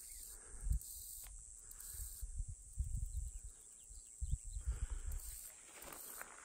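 Faint outdoor ambience: a steady, high insect buzz, with irregular low rumbles on the microphone, the strongest about a second, three seconds and four seconds in.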